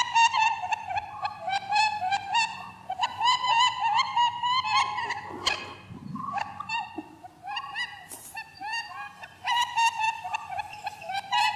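A dense, continuous run of short, squeaky chirping calls, several a second, each bending up and down in pitch. The calls thin out briefly in the middle and then pick up again.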